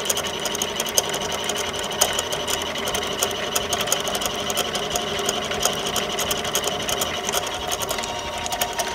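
Central Machinery 93212 benchtop mini lathe running steadily while a twist drill held in the tailstock chuck cuts a starting hole into the face of a spinning bolt, with a rapid irregular ticking throughout. The drill has no center-drill start and wobbles a little until the hole is deep enough.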